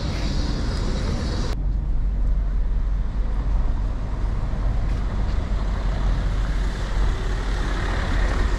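Low, steady rumble of city street traffic. About a second and a half in, the sound changes abruptly and the higher hiss drops away.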